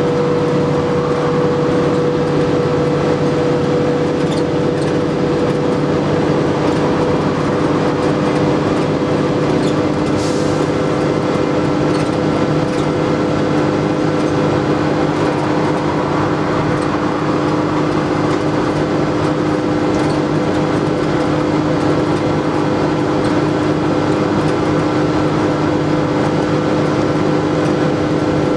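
Single-deck diesel bus under way, heard from inside the saloon: the engine and drivetrain run steadily with a constant whine over road noise and body rattle.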